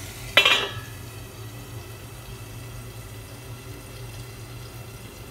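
A stainless-steel lid set down on a frying pan with one clank that rings briefly, about half a second in. Then the food cooks quietly under the lid with a faint, steady low hiss.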